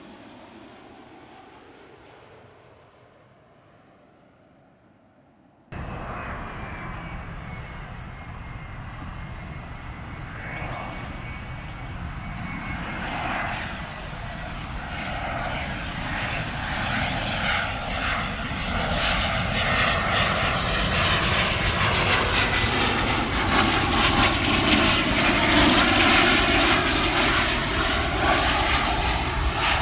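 Fading aircraft noise that cuts off abruptly, then a Cessna Citation XLS business jet's twin turbofans arriving: a steady jet rush with a high whine that grows louder as the jet comes closer, loudest near the end.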